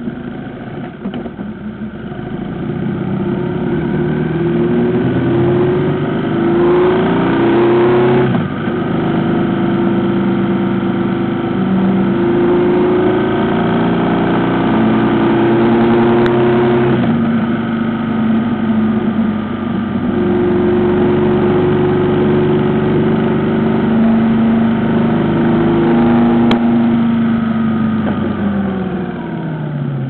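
Motorcycle engine heard from the rider's seat, pulling away with its pitch climbing through the gears, with shifts about 8 and 17 seconds in. It then runs steadily at cruising speed and falls in pitch near the end as the bike slows.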